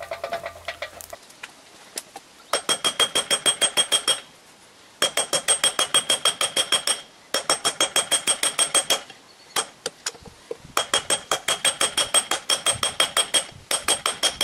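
Blacksmith's hand hammer striking red-hot steel on an anvil in several fast runs of blows with short pauses between, each blow ringing brightly. A steady hum from the forge stops about a second in.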